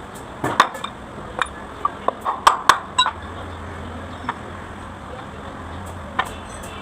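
Irregular light metallic clinks and taps, about a dozen, most of them in the first three seconds, with a low steady hum joining in the middle.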